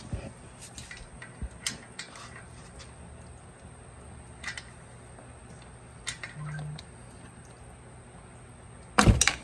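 Small scattered clicks and scrapes of a hand pick tool working a rubber coolant hose loose from its engine outlet, with a short, louder clatter near the end as the hose comes free.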